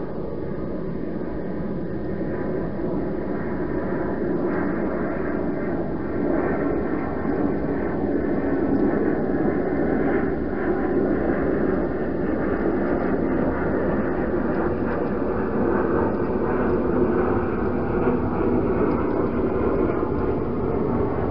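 Steady rumble of distant engine noise that swells gradually over the first half and then holds.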